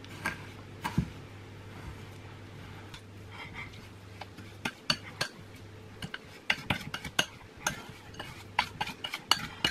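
A utensil clinking and scraping against a mixing bowl as butter and sugar are stirred and creamed together, in irregular clicks that come thicker from about halfway through.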